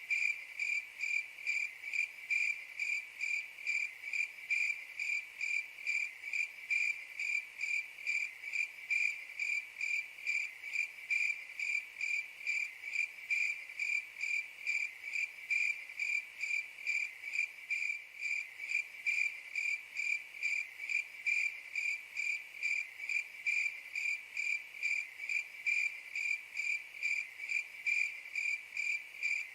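Cricket chirping in a steady, even rhythm, a few high-pitched chirps a second.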